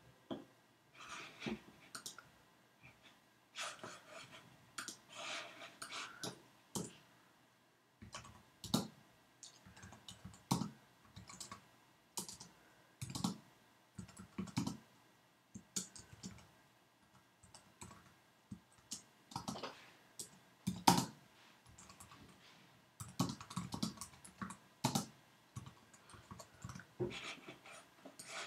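Typing on a computer keyboard: irregular key clicks in scattered bursts with short pauses.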